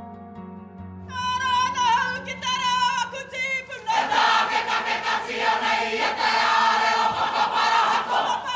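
A soft instrumental drone gives way about a second in to a single strong voice singing a leading line, and at about four seconds a full kapa haka group joins in, singing loudly together in Māori waiata style.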